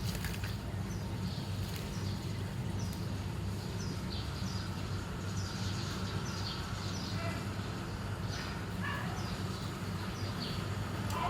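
Sun conure giving short, soft chirps that fall in pitch, about one or two a second, over a steady low hum.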